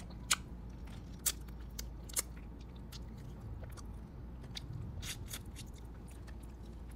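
Small steamed ba khía mangrove crabs being bitten and cracked apart while eating: a scatter of sharp shell crunches and snaps with chewing in between. The loudest cracks come about a third of a second, a second and a quarter, and two and a quarter seconds in, with another cluster around five seconds.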